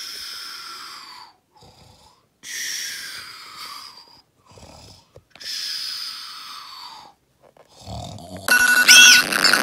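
Three long, exaggerated snores, each falling in pitch, about three seconds apart, from a sleeping tiger puppet. About a second before the end, a loud electronic alarm tune starts.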